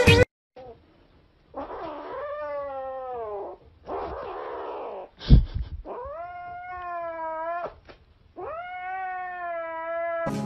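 Gray kitten yowling three times in long drawn-out calls of about two seconds each, the first falling in pitch, as it guards a plush toy it is clutching. A short hiss-like noise and a sharp knock come between the first and second calls.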